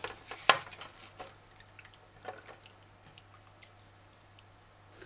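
Hands handling wet, thawed fish fillet pieces in a ceramic plate: scattered light wet taps and clicks, the sharpest about half a second in.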